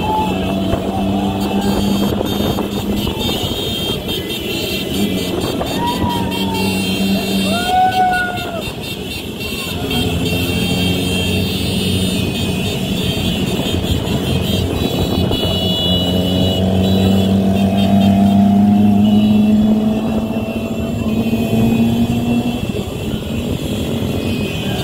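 Vehicle engines running in a slow-moving motorcycle motorcade, one close engine humming steadily, its pitch climbing about two-thirds of the way through and dropping back near the end. A few short tones rise and fall over the first several seconds.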